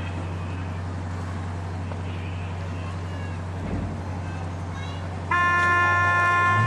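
A deep ship's horn sounding steadily. About five seconds in, a louder, higher-pitched horn suddenly joins it and holds.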